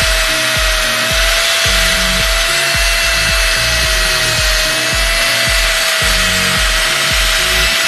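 Electric angle grinder with a buffing pad running at a steady high whine, buffing a bare steel motorcycle side stand with metal polish, under background music with a bass line.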